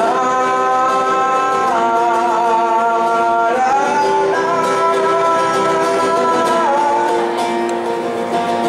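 Wordless singing over acoustic guitar: a voice holds long notes, moving to a new pitch three times, while the guitar keeps playing underneath.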